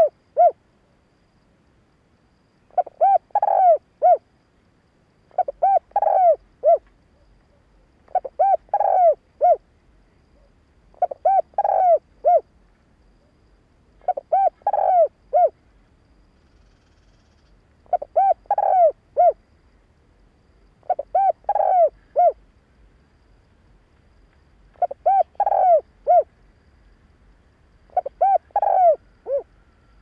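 Spotted dove cooing: a short phrase of three or four coos, repeated about every three seconds.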